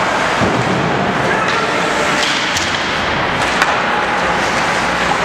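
Ice hockey play in an indoor rink: sharp knocks and clacks of sticks, puck and boards over a steady din of spectators' voices, with the sharpest knock about three and a half seconds in.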